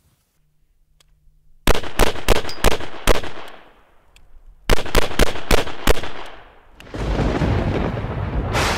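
AR-style carbine fired in two quick strings of about half a dozen shots each, a second and a half apart. A steady heavy rumble starts about seven seconds in.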